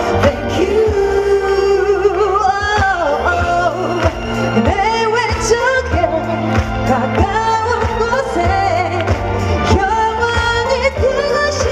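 Female singer performing a Korean pop song live into a handheld microphone, her voice carried over the PA with backing music.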